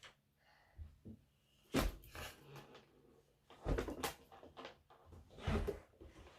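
Small toys being handled: three louder knocks, spaced about two seconds apart, with lighter clicks and rustles between them.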